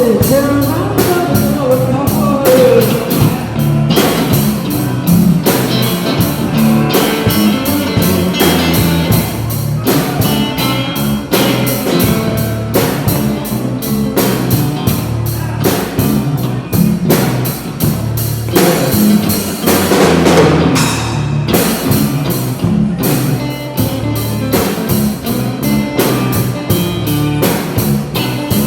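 Rock music played on drum kit and electric guitar, with a steady, dense drum beat throughout and guitar lines that bend in pitch during the first few seconds.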